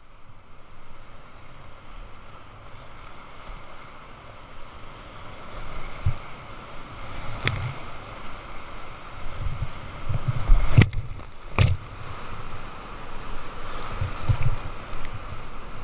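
Whitewater rapid rushing around a kayak, heard close on the boat's camera, growing louder as the kayak drops into the rapid. A few sharp knocks and splashes come about seven and a half and eleven seconds in, with low thuds of paddle strokes and water hitting the boat.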